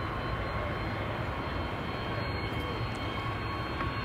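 Airliner engines running steadily: an even rumble and hiss with a faint constant high whine.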